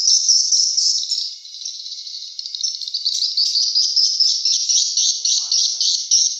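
Edible-nest swiftlets twittering: a dense, continuous, high chattering of many rapid calls.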